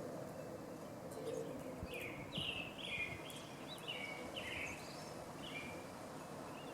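A small songbird chirping: a run of short, falling chirps from about two seconds in until shortly before the end, over steady outdoor background noise.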